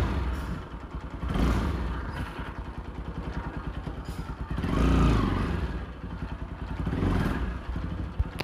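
Bajaj Pulsar NS 200 single-cylinder engine running after repair, with the throttle opened three times so the engine note rises and falls over a steady beat of firing pulses. The mechanic says the engine no longer sounds like a shallow irrigation-pump engine. He says wear remains in the piston, cylinder and cam rocker.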